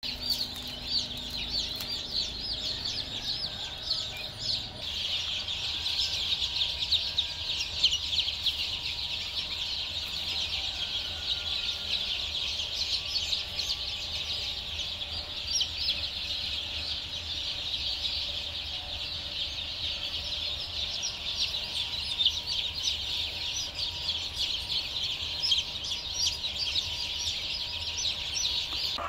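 A crowd of newly hatched chicks peeping without pause, many shrill chirps overlapping one another.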